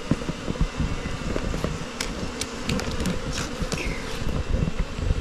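Many Asian honey bees (Apis cerana) buzzing close around the microphone, with individual bees passing by again and again in quick swoops.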